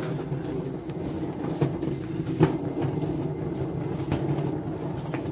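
A steady low mechanical hum like an engine running, with a few sharp rustles and knocks of a phone brushing against a nylon jacket collar.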